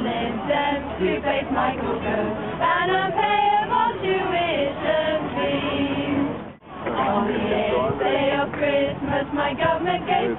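A small group of carol singers, mostly women's voices, singing a Christmas carol together without accompaniment. The sound cuts out briefly about two-thirds of the way through at an edit, then the singing carries on.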